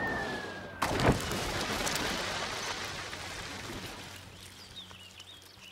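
A water drop strikes a leaf with a sudden loud splash, followed by a hiss of spray and droplets that slowly fades away.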